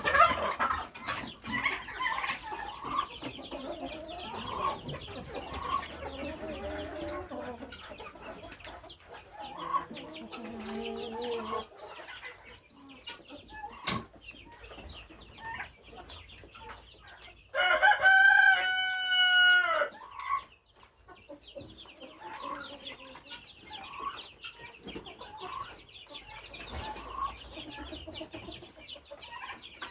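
Chickens clucking and chicks peeping in many short high calls, with lower clucks through the first part. A little past the middle a rooster crows once, loudly, for about two seconds, and there is a single sharp click shortly before it.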